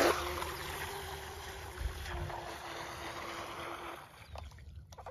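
Electric radio-controlled boat's motor and propeller running at speed with a steady whine over the hiss of spray as it pulls away, then cutting out about four seconds in. This is a power cut, which the owner puts down to the small speed control probably drawing too much current.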